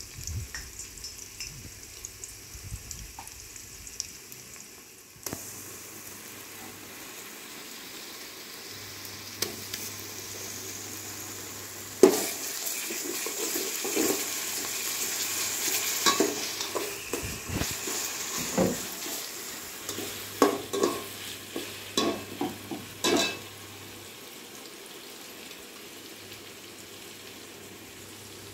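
Onions and whole spices frying in oil in an aluminium pot, sizzling steadily. The sizzle grows louder about halfway through, when a metal slotted ladle stirs them. The ladle knocks and scrapes against the pot several times, the loudest clank when stirring begins, then a quick run of knocks near the end.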